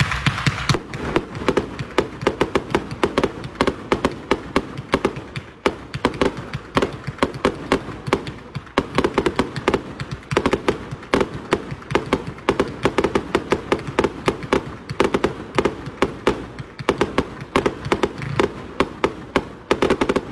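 Consumer multi-shot firework cake firing a rapid, continuous string of shots, several a second, each a sharp pop or bang as the tubes lift and the shells burst.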